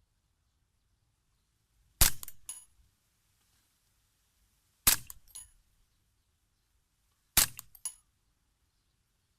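Three suppressed .22 rimfire shots from a Ruger 10/22 fitted with a mini suppressor, spaced about two and a half seconds apart, each a short sharp crack followed about half a second later by a fainter crack.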